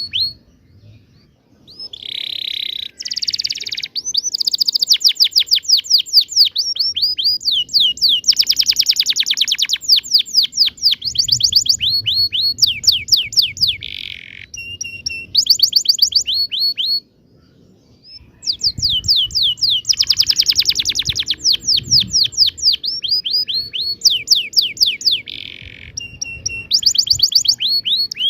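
Domestic canary singing a long rolling song: fast runs of rapidly repeated falling notes and buzzy trills, breaking off briefly twice.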